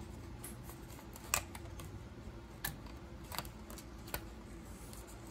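Light clicks and ticks of a cut strip of 120 film being pushed and flexed into the slot of a Negative Supply 120 film carrier. The sharpest click comes about a second and a half in.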